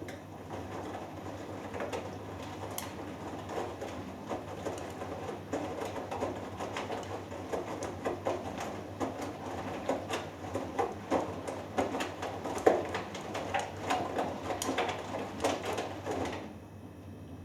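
Hoover Dynamic Next washing machine drum turning during the main wash of a cotton cycle: wet laundry and water sloshing and knocking inside the drum, then stopping abruptly near the end as the drum pauses between tumbles.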